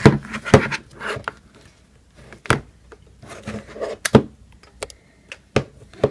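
Two power banks being handled and set against each other on a hard surface: about five sharp knocks and clicks, spaced irregularly, with soft rubbing and rustling in between.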